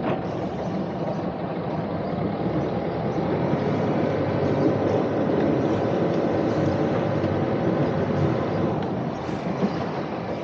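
Sailing boat's engine running in forward gear with a steady drone that swells a little through the middle.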